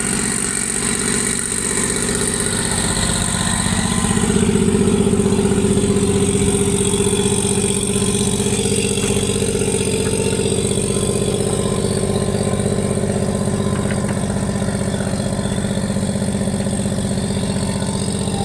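Austin Model R tractor engine running steadily under ploughing load, getting a little louder about four seconds in.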